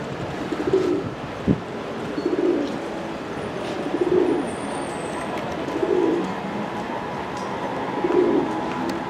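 A feral pigeon cooing over and over, one low coo about every two seconds, over the steady hum of a station platform. A single knock comes at about a second and a half. Near the end a faint steady whine joins in as the S-Bahn electric train begins to pull out.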